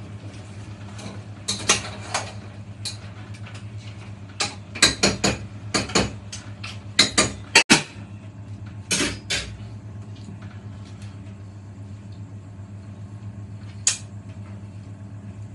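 Dishes and utensils clinking and clattering in a run of sharp knocks, most between about two and nine seconds in, with one more near the end, over a steady low hum.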